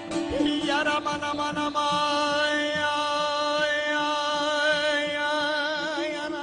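A male folk singer holds one long wordless note, steady at first and wavering into vibrato near the end, accompanied by a bağlama (saz) that is plucked briskly in the first two seconds and rings on beneath the voice.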